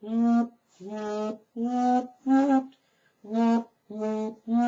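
A man's voice imitating a vibrating phone: short steady-pitched buzzing hums, about seven in a row, each roughly half a second long with short gaps between.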